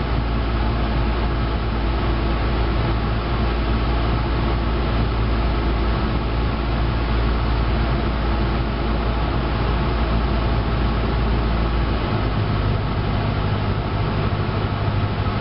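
Cessna 172's piston engine and propeller droning steadily in cruise, heard from inside the cabin. The deepest note of the drone shifts a little higher about twelve seconds in.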